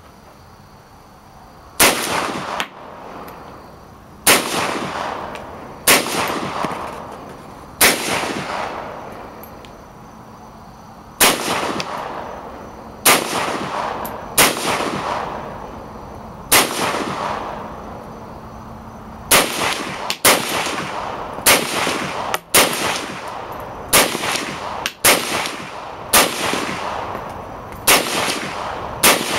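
Norinco SKS semi-automatic rifle in 7.62×39 fired shot after shot, each report trailing off in a long echo. The shots come about two seconds apart at first, then quicker, roughly one a second, from about two-thirds in.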